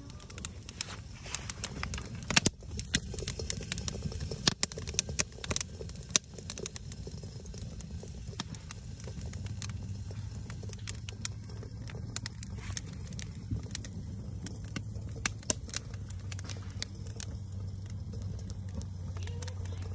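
Wood campfire crackling, with irregular sharp pops that are loudest and most frequent in the first few seconds. A low steady hum comes in underneath about halfway through.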